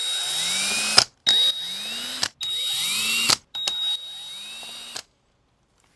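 Cordless power drill/driver unscrewing bolts on a mobility scooter, in four short trigger pulls of about a second each. Each pull has a whine that rises as the motor spins up, and the last one is quieter.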